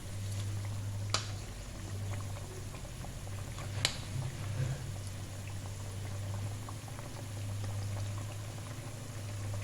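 Tauco sauce with fried mackerel simmering and bubbling steadily in a pan, over a low steady hum. Two sharp clicks come about a second in and again near four seconds.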